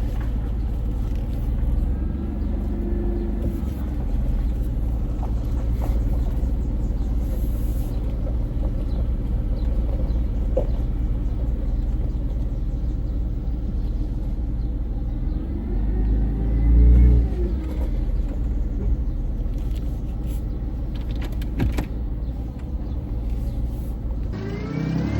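Jeep running with a steady low rumble of engine and road noise. The engine pitch rises and falls twice, once a couple of seconds in and again about two-thirds through, where it is loudest, as the engine speeds up and settles.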